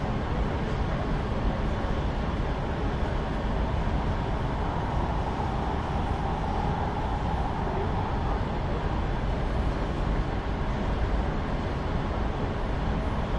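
Los Angeles Metro Rail train running steadily, a constant low rumble with a faint tone that swells and fades around the middle.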